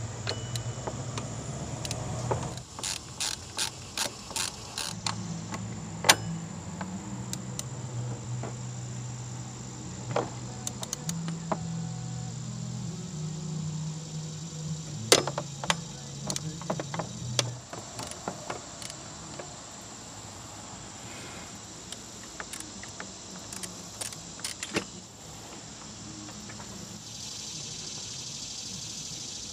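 Metal hand-tool clicks and knocks from a socket wrench working the power steering pump's mounting bolts, scattered irregularly. Underneath are a steady high-pitched whine and, during the first half or so, a low hum that shifts in pitch in steps.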